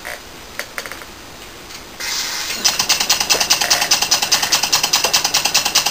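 Stuart Turner No. 9 horizontal model steam engine starting on compressed air. About two seconds in, a hiss begins as the air is let in. Then it runs with rapid, even exhaust puffs, about five a second.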